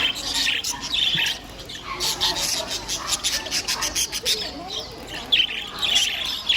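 Many caged pet birds chirping and squawking at once, a constant chatter of short, overlapping high calls.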